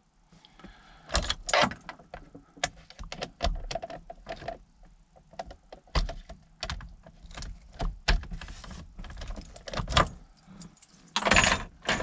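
Keys jangling on their ring and sharp, irregular metal clicks from a GM ignition lock cylinder as it is turned with the key and worked out of the steering column.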